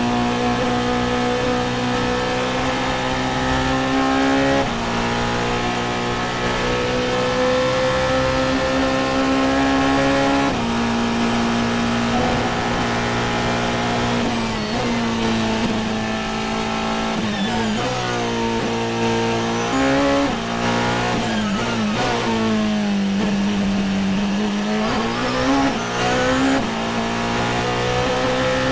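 Porsche 919 Hybrid Evo race car at full racing speed, heard from on board: its turbocharged 2.0-litre V4 climbs in pitch with an upshift about four and a half seconds in and another about ten seconds in. From about seventeen seconds it drops through several quick downshifts under braking, sinks low through a slower corner, then climbs again.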